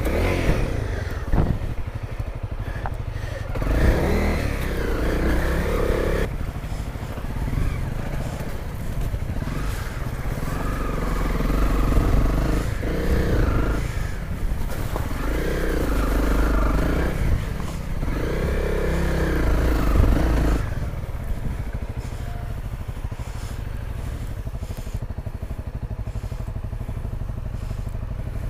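Honda CRF250L dual-sport motorcycle's single-cylinder engine under way, the revs rising and falling repeatedly as the throttle is worked, then running lower and steadier from about two-thirds of the way in.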